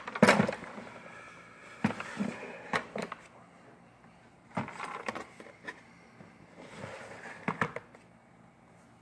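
Plastic drawers of a Plano fishing tackle box sliding and clacking, with the tools and parts in its trays rattling: several bursts of sharp clicks and scrapes, the loudest just after the start.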